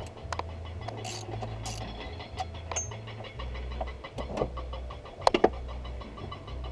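Scattered metallic clicks and knocks of hand tools and parts being handled at the engine's belt tensioner and pulleys, two sharp knocks close together about five seconds in, over a low uneven rumble.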